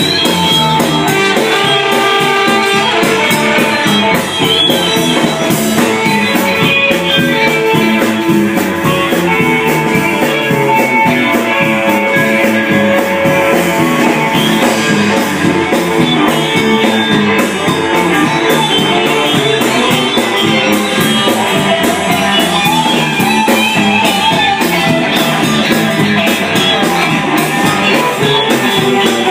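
Loud, continuous instrumental music with many sustained notes, a band sound with guitar among the instruments.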